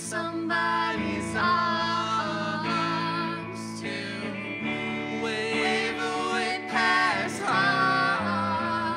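Live song: a woman singing the lead melody over electric guitar, with a man's voice singing along near the end.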